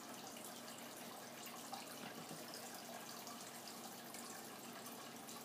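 Faint steady hiss of room tone in a small room, with a few tiny faint clicks and no distinct event.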